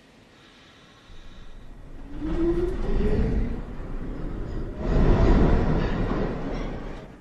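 New York City subway train accelerating out of the station: a rising whine from the traction motors climbs over the rumble of wheels on rail, swelling twice and fading near the end.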